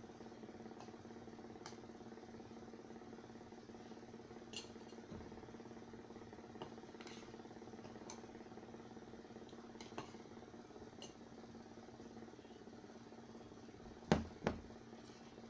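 Spoon and fork clinking now and then against a plate during a meal, with two sharper knocks near the end, over a steady low hum.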